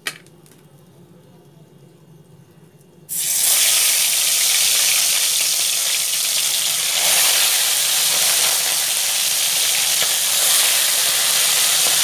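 Parshe (grey mullet) fish, rubbed with salt and turmeric, frying in smoking-hot mustard oil: a loud sizzle starts suddenly about three seconds in and keeps going steadily.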